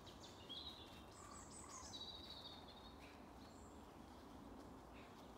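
Faint birdsong in woodland: a few short, high, thin phrases in the first half, over a quiet background hiss.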